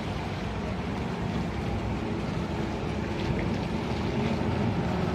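Tour speedboats' outboard motors running, a steady low engine noise blended with the wash of water.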